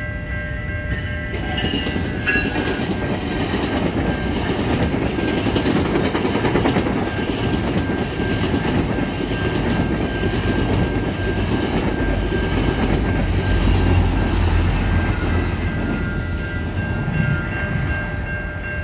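GO Transit bilevel commuter train passing through a level crossing: a dense rumble of wheels on rail that swells about a second in, stays heavy through the middle, with the deepest rumble in the second half, and eases near the end. A steady, ringing warning tone from the crossing signal runs underneath throughout.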